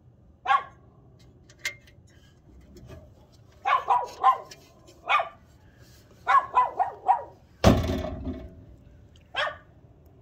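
A dog barking in short bursts, about ten barks in groups of one to four. A loud thump with a brief rumbling tail cuts in about seven and a half seconds in.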